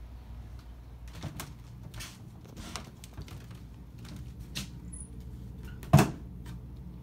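Footsteps and handling knocks as someone walks through a room, then a sharp knock near the end as a bathroom door is pushed open. That knock is the loudest sound.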